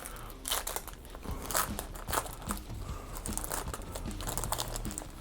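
Crinkling and crackling of a trading-card pack wrapper being opened by hand, with the cards inside handled, in short irregular bursts.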